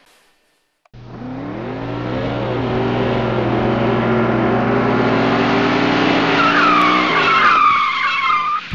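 Car sound effect: an engine revving, rising steadily in pitch, then tyres squealing from about six and a half seconds in. It starts and stops abruptly.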